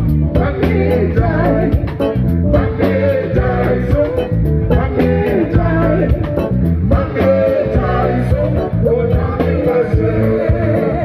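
Live band music with a man singing lead into a microphone, over a drum kit keeping a steady beat and a bass line.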